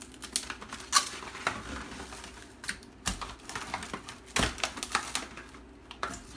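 Plastic cling wrap being pulled off the roll, torn and pressed over a plate, crinkling and crackling in quick irregular clicks.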